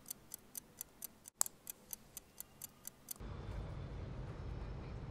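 A watch ticking quickly and evenly, about five ticks a second. A bit after three seconds in the ticking stops and a steady low rumble takes over.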